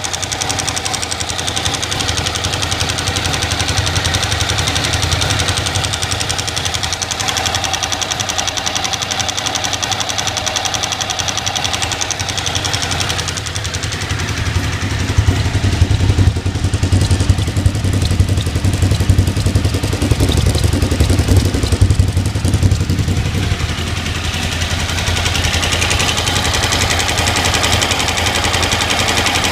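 Suzuki TL1000R's 90-degree V-twin engine running steadily with a ticking noise. About halfway through, the low engine sound grows louder for several seconds, then settles back.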